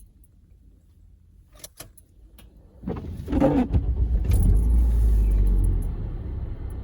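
Car engine stopped, leaving near quiet with a few light clicks of keys. About three seconds in the engine cranks and starts, running strong with a low rumble, then settles toward idle near the end.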